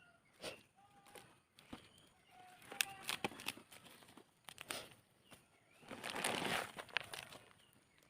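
Rustling and crinkling with scattered knocks, as a plastic grow bag and its soil are handled, loudest in a longer rustle about six seconds in. Faint short bird chirps.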